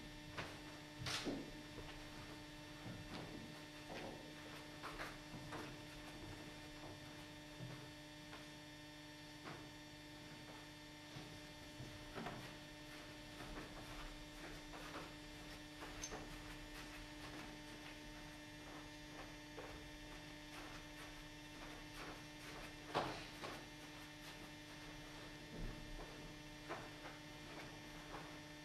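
Steady electrical mains hum, broken by a few soft knocks; the clearest come just after the start and about three-quarters of the way through.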